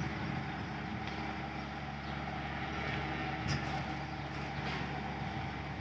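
A motor or engine running steadily with a low hum, with a brief knock about three and a half seconds in.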